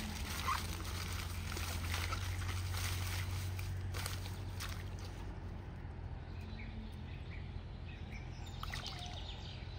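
Shallow water sloshing and splashing, with many small splashes and clicks that thin out about halfway through.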